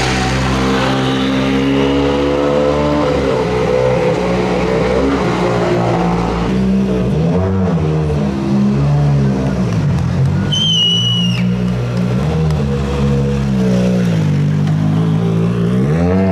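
Rally1 rally cars' turbocharged four-cylinder engines (a Hyundai i20 N Rally1, then an M-Sport Ford Puma Rally1) running at low speed with repeated short throttle blips as they creep past. A brief high whistle sounds about ten seconds in.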